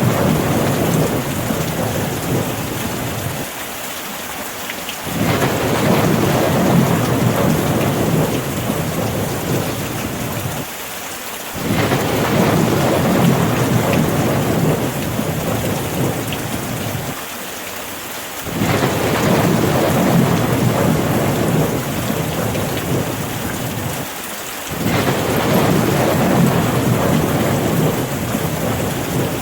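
Steady rain with low rolling rumbles of thunder that swell and die away about every seven seconds.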